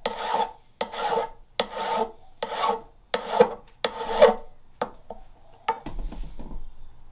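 Hand file scraping across the bevel of an O1 tool-steel pole-lathe hook tool, about six strokes a little under a second apart, each with a ringing note. The strokes stop about four and a half seconds in, followed by a few light clicks.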